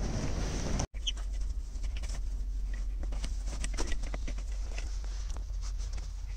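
Scattered small clicks and fabric rustling as a truck sleeper-cab bunk curtain is hung, its hooks snapping into the ceiling track. A steady low hum runs underneath.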